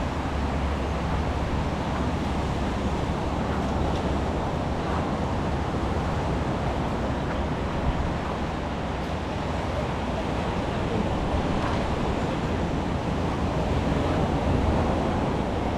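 Steady outdoor street ambience: a constant rushing noise with a heavy low rumble and no single clear event.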